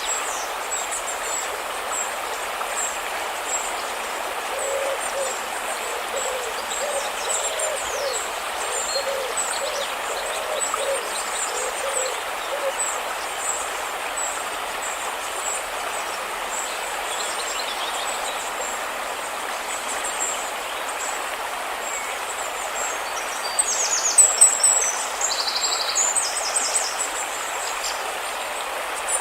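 River water flowing steadily, with high chirping birdsong throughout and a run of low, evenly repeated bird calls in the first half. About two-thirds of the way in comes a louder flurry of high bird calls, the loudest thing heard.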